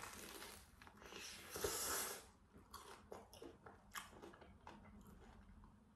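A person chewing a bite of a McDonald's apple pie, its fried crust crunching close up. The loudest crunching comes about a second and a half to two seconds in, followed by quieter chewing with small clicks.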